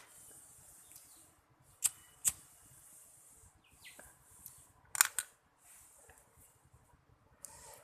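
Electrical wire being cut and stripped with a hand tool: a few sharp snips and clicks, the loudest about two seconds in and again about five seconds in, with a scraping hiss between them.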